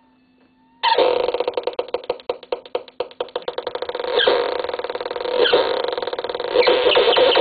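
Circuit-bent toy keyboard bursting in about a second in with a loud, harsh glitchy buzz that stutters in rapid pulses. It then thickens into a dense noisy drone with three falling pitch sweeps a little over a second apart. A faint low hum comes before it.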